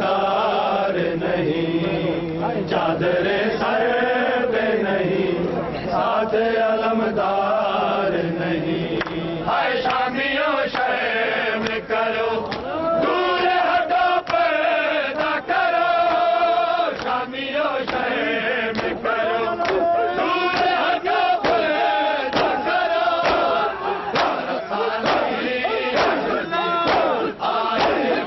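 A crowd of men chanting a Shia noha (lament for Karbala) in unison, with regular slaps of hands on bare chests (matam) keeping the beat.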